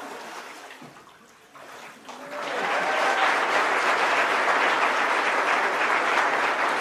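Water splashing in a baptismal tank as a person is immersed and brought up. Then, about two seconds in, a congregation breaks into loud, steady applause.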